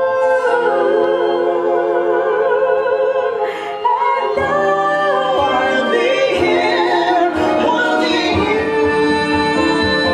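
A man and a woman singing a Broadway musical duet in full operatic voice over orchestral accompaniment, holding long notes with wide vibrato.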